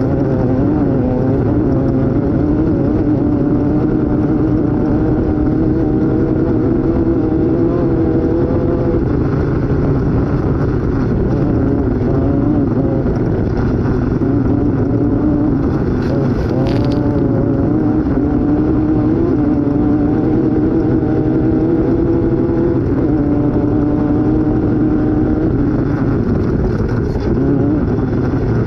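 Off-road race vehicle's engine running hard, heard from on board, its pitch rising and falling continually with the throttle over a steady heavy rumble from the drivetrain and terrain. A short burst of higher-pitched noise comes a little past halfway.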